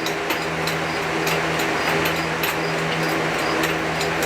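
A machine running steadily, with a hum, a broad hiss and faint irregular ticks.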